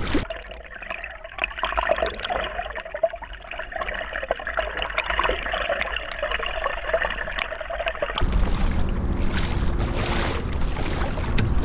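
Water trickling and gurgling as heard by an underwater camera, muffled and busy. About eight seconds in it changes to open-air wind and water noise around a kayak.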